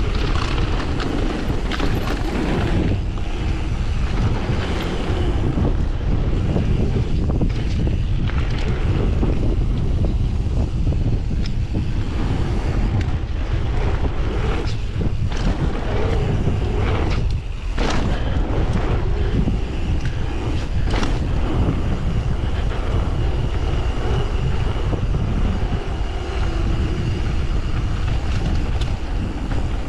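Wind buffeting an action camera's microphone while a mountain bike rolls fast down a dirt and gravel trail, with steady tyre rumble and several short knocks and rattles from the bike over bumps.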